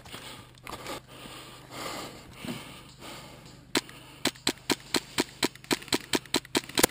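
Airsoft rifle firing a rapid string of sharp single shots, about four a second and some thirteen in all, starting a little before the middle. Before the shots, quiet rustling of movement.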